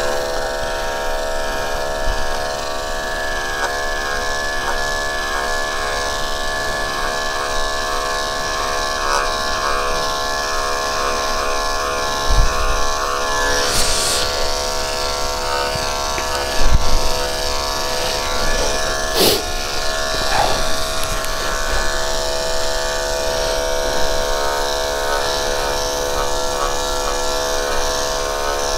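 Corded electric dog grooming clipper running with a steady buzz as it shaves matted coat down to the skin. A few short knocks come in the second half.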